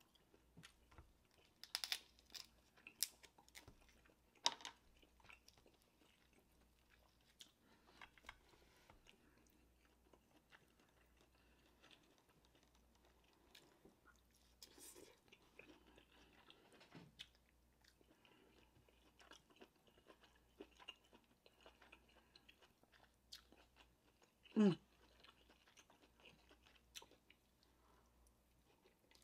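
Close-miked eating of buttery king crab and lobster meat: quiet chewing and biting with scattered sharp clicks, busiest in the first few seconds. A brief falling hum about three-quarters of the way through.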